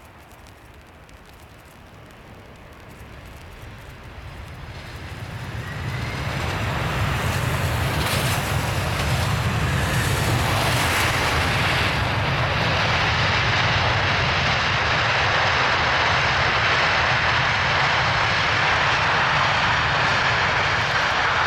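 Three-engined McDonnell Douglas MD-11 jet airliner just after touchdown on a wet runway. Its engines are faint at first, then spool up with a rising whine from about four seconds in into reverse thrust, which holds as loud, steady jet noise to slow the aircraft.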